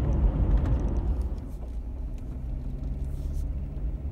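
Jeep Wrangler JKU Rubicon's V6 engine and tyres heard from inside the cab while driving: a low rumble of road noise that eases off, turning about two seconds in into a steadier low engine drone.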